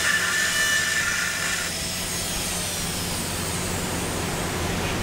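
High-speed NSK dental handpiece with a straight fissure bur whining as it cuts a class V cavity in a plastic model tooth. About two seconds in the cutting stops and the whine falls away as the turbine spins down, over a steady low hum.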